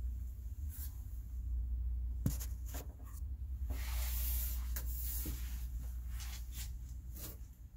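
Scattered light clicks and knocks and a brief rustle over a steady low rumble, made by someone moving through the RV's bathroom while carrying the camera.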